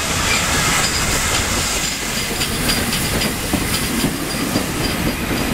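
A train running along the track: a steady noise of wheels on rails, with short repeated metallic clicks.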